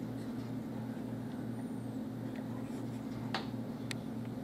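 Room tone: a steady low electrical or mechanical hum, with a few faint clicks, the clearest about three and a half seconds in.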